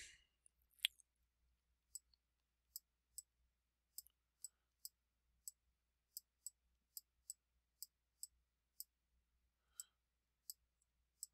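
Faint, sharp clicks of a stylus pen on a tablet screen during handwriting, about two a second, over near silence, with one brief squeak about a second in.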